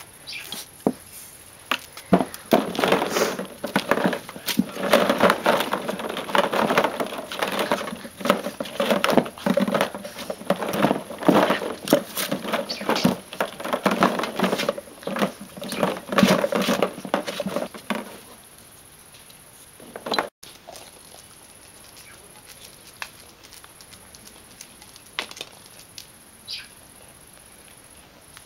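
Plastic ball-pit balls rattling and clacking against each other and the plastic pool as puppies romp in and around the pit, a dense irregular clatter that stops about 18 seconds in. After that only faint, scattered ticks remain.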